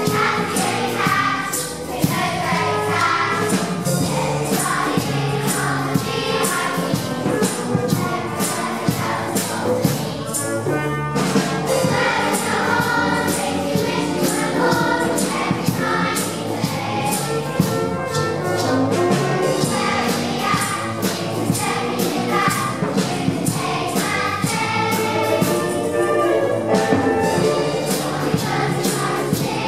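A large children's choir singing along with a school band of wind instruments, mallet percussion and drum kit. The drum kit's cymbals keep a steady beat.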